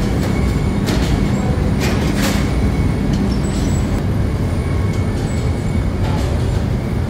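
Steady low mechanical rumble with a faint constant whine, from bakery ovens and machinery running. A few short hissing bursts break in about one, two and six seconds in.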